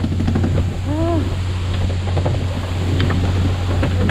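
A boat engine hums steadily under the hiss and splash of water spray on the sea surface, with wind on the microphone. About a second in there is one short rising-and-falling voice call.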